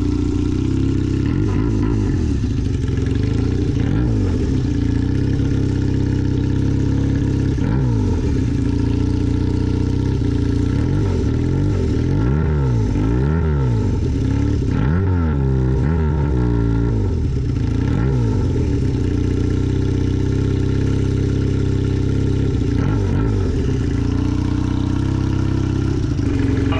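Honda CB400 motorcycle engine running at idle and blipped up and down in rhythmic throttle revs, the Zokusha-style 'call', with the revving bunched toward the middle.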